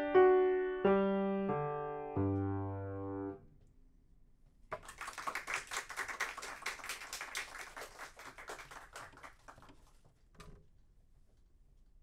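Grand piano playing a few chords, the last a low held chord that is cut off after about three seconds. Then a few seconds of sheet-music paper rustling as the pages are handled, and a single short knock near the end.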